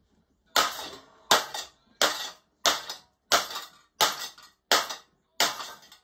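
A wrecked HPM ceiling fan lies on a concrete floor, still running, and its bent blades strike the floor as it turns: eight sharp clacks, evenly spaced at about one and a half a second, each ringing briefly.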